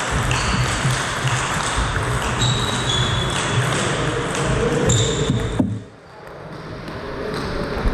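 Table tennis rally: the ball clicks off the rackets and pings on the Donic table several times, about two a second, until the rally ends a little past halfway. A steady background noise runs underneath and dips briefly after the last hit.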